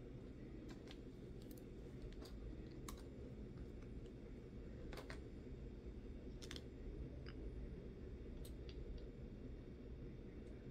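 Light, irregular clicks and taps of nail polish bottles being picked up and set down among other bottles, about a dozen in all, the sharpest about five and six and a half seconds in, over a low steady hum.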